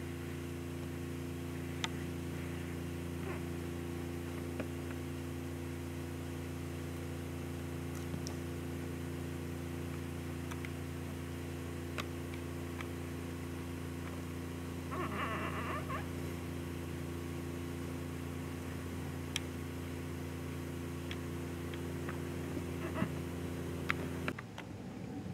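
Steady mechanical hum made of several fixed tones, with scattered faint clicks and a short rattle about fifteen seconds in; the hum cuts off abruptly just before the end.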